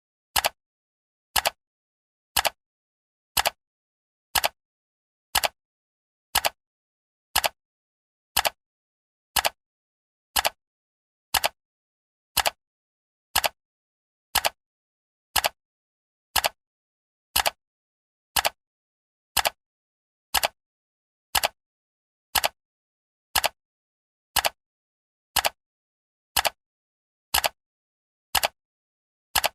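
Ticking sound effect of a countdown timer: one sharp tick every second, evenly spaced, with silence between the ticks.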